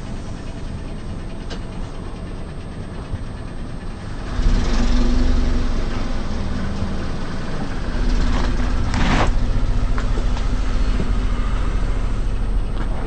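Car engine running close by, getting louder about four seconds in as the car pulls forward, with a short crunch about nine seconds in as a tyre rolls over something.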